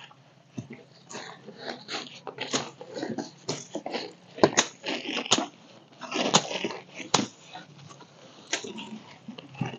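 Crunching and rustling of dry leaves, twigs and undergrowth being cleared from the forest floor by hand, with several sharp snaps about four to seven seconds in.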